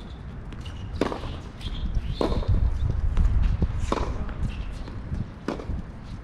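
Tennis ball rallied on an outdoor hard court: four sharp pops of racket strikes and bounces, about one to two seconds apart, over a steady low rumble.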